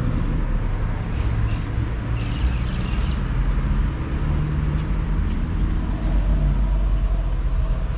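Outdoor street background noise: a steady low rumble with an even hiss above it and no distinct events.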